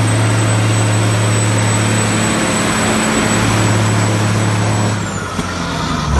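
Ginaf HD 5395 TS multi-axle dump truck's diesel engine running as the truck drives, a steady low drone with a faint high whine that drops away about five seconds in.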